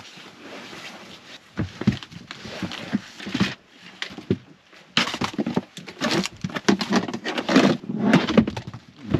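Rustling, shuffling and knocking of camping gear and bedding being handled and laid out inside a car, in irregular bursts that get busier about halfway through.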